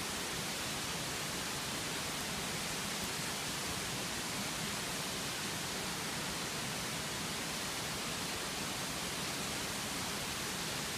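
Steady, even hiss of background noise, with no distinct events or changes.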